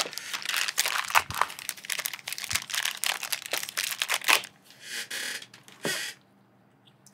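Small clear plastic bag crinkling and crackling as it is handled and opened by hand. The crinkling stops about four and a half seconds in, followed by a short rustle and a single click near the end.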